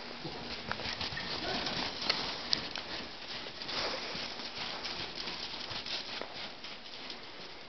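Hooves of a miniature horse and a miniature donkey stepping and scuffing about on the arena floor: many irregular light knocks with no steady rhythm.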